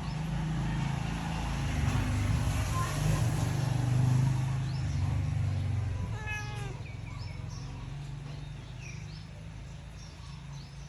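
A cat meows once, a short call about six seconds in, after a steady low rumble that fades out around the same time. Faint high chirps follow.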